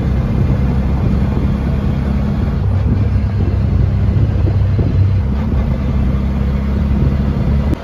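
Auto-rickshaw's small single-cylinder engine running steadily under way, heard from inside the cab.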